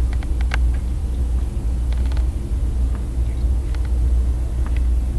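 Wind from a snowstorm buffeting the microphone, a loud steady low rumble, with scattered faint ticks.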